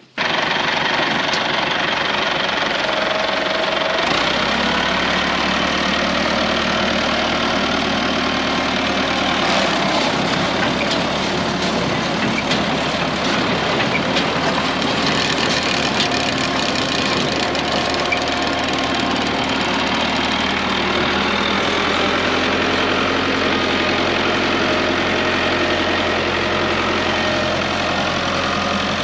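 Farm tractor engine running steadily under load, cutting in abruptly at the start; its low hum shifts slightly about four seconds in and again past the twenty-second mark.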